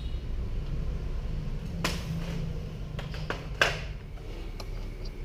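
Plastic parts of a toy RC tank clicking and knocking together as they are handled, with two sharper knocks about two seconds and three and a half seconds in and a few lighter ticks, over a steady low hum.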